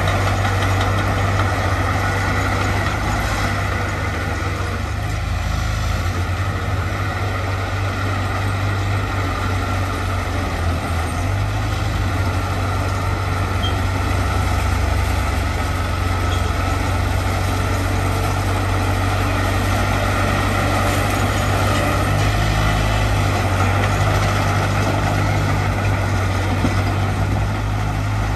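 A heavy diesel engine of earthmoving machinery running steadily, a deep drone with no break.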